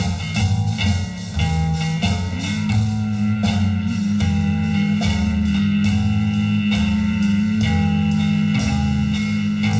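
Rockabilly song with guitar and a steady beat, played from a vinyl record on a turntable.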